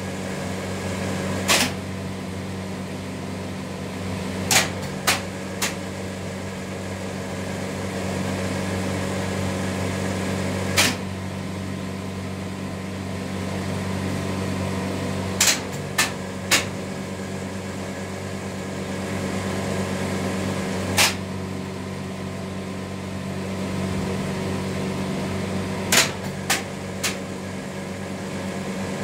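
Electro-hydraulic thruster drum brake on a winch being cycled open and closed. Sharp metallic clacks come about every few seconds, some in quick pairs or threes, over a steady electrical hum.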